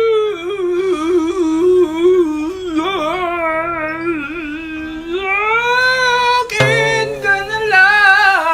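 A high voice sings a wordless, wavering melody in one long, nearly unbroken line, over quiet held low notes.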